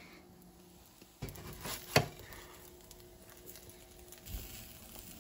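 Spatula scraping and knocking against a frying pan as an egg sandwich is handled in it, with one sharp clack about two seconds in and a softer knock near the end.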